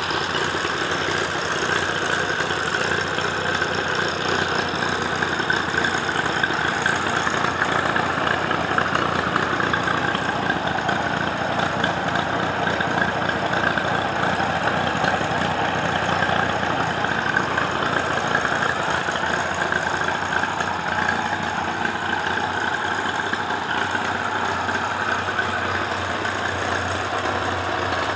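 1939 IHC Deering F12 G tractor's four-cylinder engine idling steadily.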